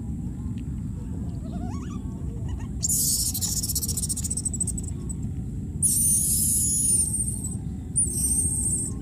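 Baby monkeys squealing in three high-pitched, wavering bursts: about three seconds in, around six seconds in, and near the end, over a steady low rumble.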